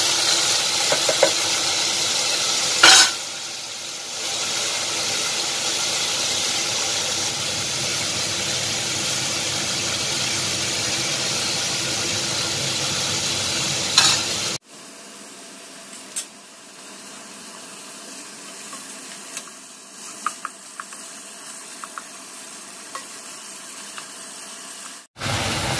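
Sliced pork sizzling in hot oil in a frying pan, stirred with a wooden spatula, with a few sharp clicks. About halfway through the sizzle drops suddenly to a much quieter level, with light taps of the spatula on the pan.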